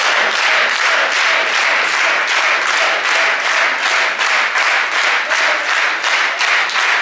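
Audience clapping in a steady rhythm, about three to four claps a second, over a wash of crowd noise.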